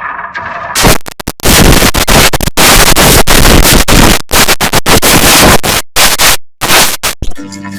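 Extremely loud, harsh distorted noise, an edited audio effect, bursting in about three-quarters of a second in and stuttering with several abrupt cut-outs before it gives way to steady electronic tones right at the end.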